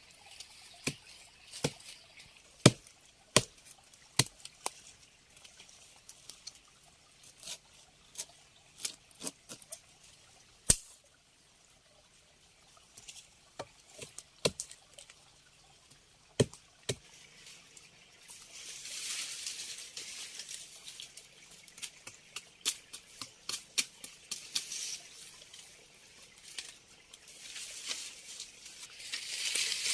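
Irregular sharp knocks and taps, roughly one a second, which stop about 17 seconds in. A high hiss then swells and fades twice.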